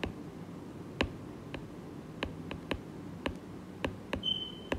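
A stylus tip tapping and clicking on a tablet's glass screen while handwriting: about a dozen light, irregular clicks.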